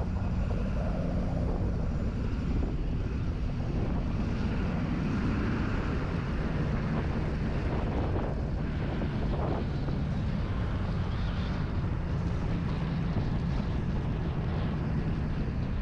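A vehicle's engine running with a steady drone and road noise, picked up by a camera mounted on the moving vehicle, with some wind on the microphone.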